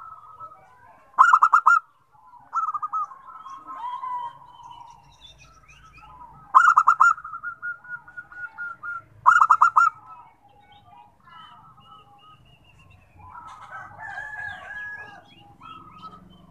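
Zebra dove (perkutut) cooing its staccato song three times, each a quick run of sharp repeated notes about half a second long. Softer cooing and chirping of other birds runs between them.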